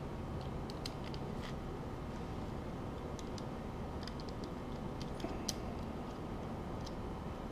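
Scattered light clicks and taps of small plastic and metal steering-kit parts being handled and fitted together by hand, over a steady low background noise.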